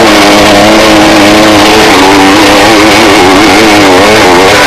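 Trail motorcycle engine running loud under riding load, its pitch rising and falling with the throttle as the bike rides down a muddy trail.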